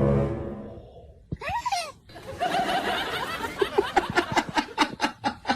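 A person laughing, the laughter breaking into quick repeated pulses from about three and a half seconds in, after a fading tone at the start.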